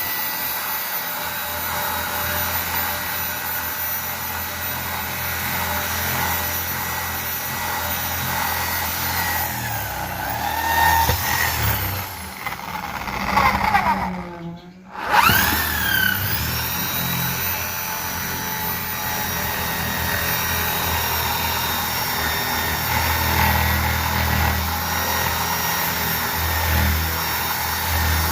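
Electric drill running steadily with a high motor whine. About halfway through it winds down almost to a stop, then spins back up and runs on.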